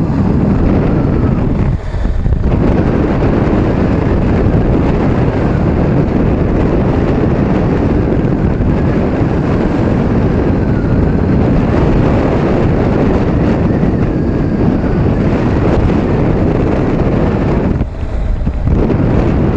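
Wind rushing over the action-camera microphone on a moving Honda CB500X motorcycle, with the bike's parallel-twin engine and road noise underneath. The noise dips briefly twice, about two seconds in and again near the end.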